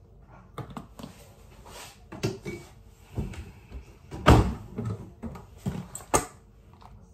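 Irregular knocks and clatters of household objects being handled, about a dozen over several seconds, the loudest about four seconds in.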